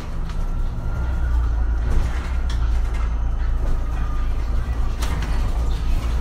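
MAN Lion's City Hybrid city bus running: a steady low drone with a faint steady whine above it and a few short clicks or rattles.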